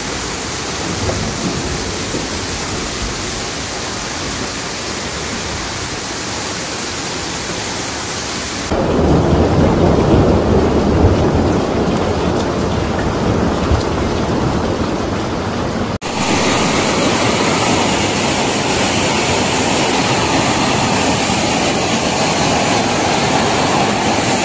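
Steady rushing noise of floodwater and heavy rain, in three stretches that cut off abruptly about 9 and 16 seconds in. The middle stretch is louder and deeper.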